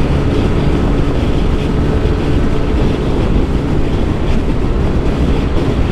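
Wind buffeting the microphone while riding a Yamaha Aerox scooter, with the scooter's engine running steadily and faintly underneath.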